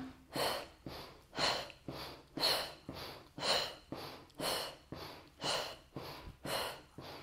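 A woman breathing hard and rhythmically from exertion during a brisk walking workout: sharp breaths about twice a second, every other one stronger.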